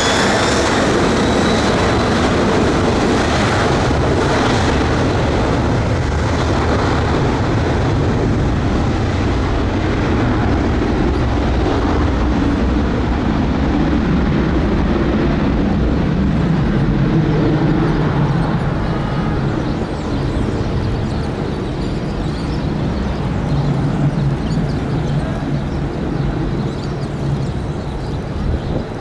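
Jet airliner engines running loud and steady, a full-range roar over a low rumble, with a high turbine whine fading in the first second; the noise eases a little about two-thirds of the way through.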